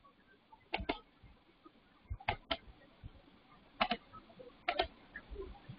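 Computer mouse clicking: four pairs of short, sharp clicks spread through a quiet stretch, each pair a press and release close together.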